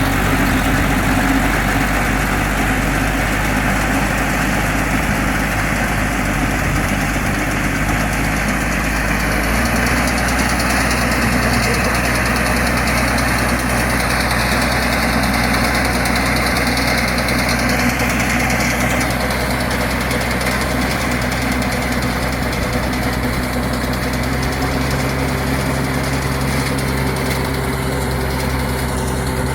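Engine running steadily while driving a net-wrap round baler at work; its note changes about ten seconds in.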